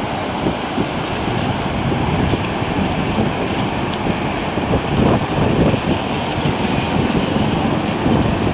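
Steady rushing of a fast-flowing mountain river, a continuous loud noise with irregular swells.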